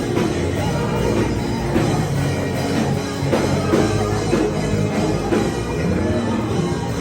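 Loud band music with drums, steady throughout.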